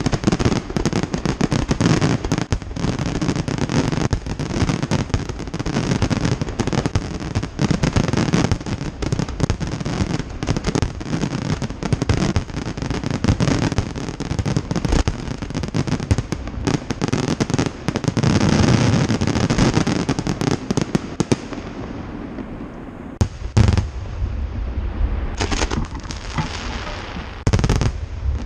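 Aerial fireworks display: a dense, continuous barrage of shell bursts over crackling. About three-quarters of the way through it thins out to a few separate loud bangs.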